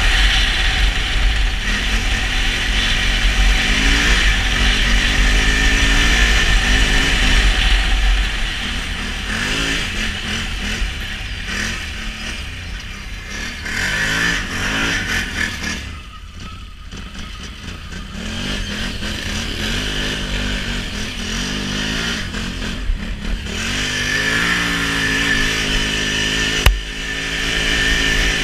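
Can-Am Renegade XMR 1000 ATV's V-twin engine, heard from the rider's seat, revving up and down as the quad is ridden through snow. It eases off for a couple of seconds around the middle, then revs again, and a single sharp knock sounds near the end.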